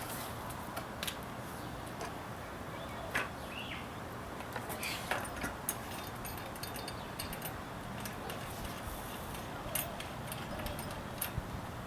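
Scattered light metallic clicks and clinks as a small bicycle wheel is handled and fitted back into the frame's dropouts, about half a dozen spread out, over a faint steady low hum.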